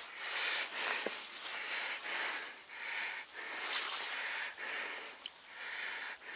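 A man's steady breathing, a soft rhythmic run of breaths about once a second, as he crouches and works with his hand in shallow water.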